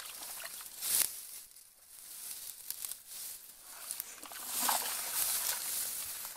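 Rustling of dry grass and splashing of bare feet in shallow muddy water, coming in uneven bursts, loudest about a second in and again from about four and a half seconds.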